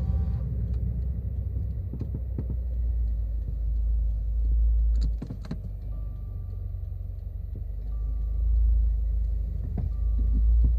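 Inside the cabin of a Subaru WRX S4 (VAG) at low speed, there is a steady low road and drivetrain rumble. Irregular knocks and clunks, the "koto-koto, boki-boki" abnormal noise, come from around the left-front footwell area. A cluster of knocks falls about halfway through.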